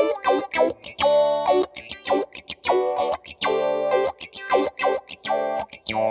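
Electric guitar, a PRS SE Silver Sky, played through an EarthQuaker Devices Spatial Delivery envelope filter in down-sweep mode. It plays a choppy funk rhythm of short chords and single notes, a few held for about half a second, each note's tone shaped by the auto-wah filter.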